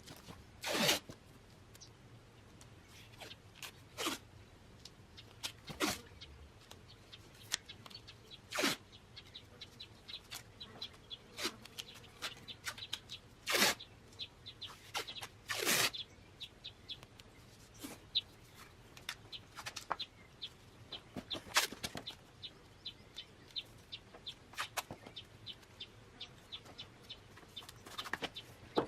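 Masking tape being pulled off the roll and torn in short rips, about a dozen times, among scattered light ticks and handling sounds.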